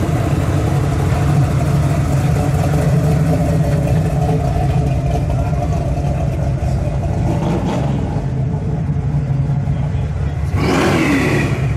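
Exhaust of classic muscle cars rumbling steadily as they crawl past at walking pace, a black Chevrolet Monte Carlo SS approaching. Near the end there is a short, louder burst with a falling pitch, like a quick blip of the throttle.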